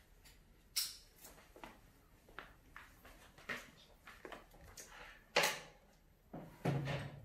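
A series of irregular short knocks and rustles in a small room, the loudest about five and a half seconds in and a longer cluster near the end.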